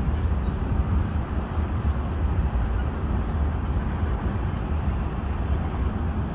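Freight train of tank cars rolling past at steady speed, a continuous low rumble with no horn or distinct clanks.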